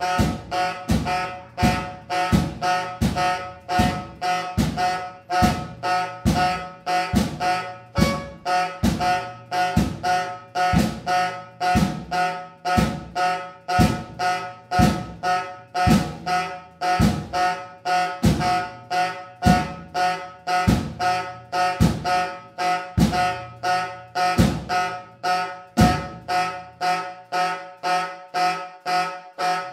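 Live jazz trio of vibraphone, alto saxophone and drum kit playing a repetitive pulsing figure: the same few pitched notes sound about twice a second over a low drum beat about once a second. The low drum beat drops out near the end while the pulsing notes go on.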